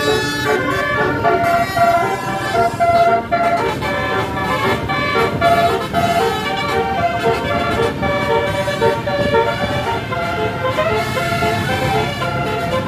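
A Basuri telolet multi-tone bus horn (36-note type) playing a melody, several tones at once stepping quickly from note to note, over a low rumble of vehicle noise.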